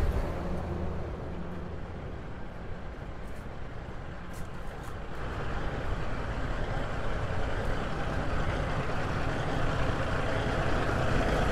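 Heavy truck engines running, a steady low rumble, with a wider rushing noise that comes in about halfway through and grows louder toward the end.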